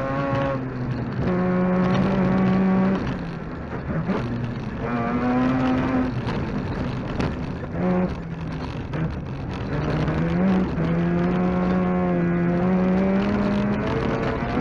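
Mazda RX2 rally car's rotary engine, heard inside the cabin, pulling hard at full throttle along a gravel stage. The engine note holds for a second or two, then drops and climbs again several times through gearshifts and throttle lifts, with a few sharp knocks from the car's underside.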